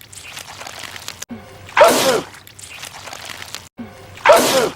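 A man sneezing twice, the sneezes about two and a half seconds apart and identical; each is a loud, short, wet burst whose voice falls in pitch.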